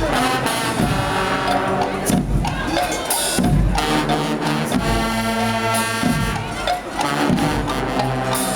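A brass marching band playing, with horns holding notes over bass drum and percussion.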